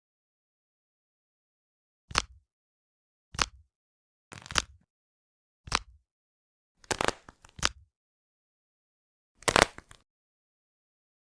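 Squishy Nee Doh stress toys handled and squeezed while being stacked: about six short, crunchy squishing noises spaced a second or so apart, with silence between.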